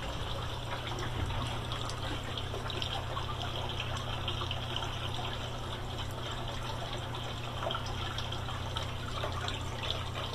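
Garden fountain's water jet splashing and trickling steadily into its stone basin, over a steady low hum.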